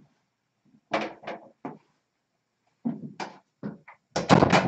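An iPad knocked about on the floor by a kitten pawing at it: short knocks and clatters in three groups, about a second in, about three seconds in, and a louder, denser clatter near the end.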